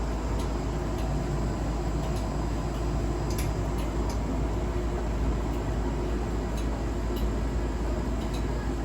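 A domestic appliance running with a steady hum and low rumble, with sharp irregular clicks every second or so, the kind of clicking its owner suspects is a fault.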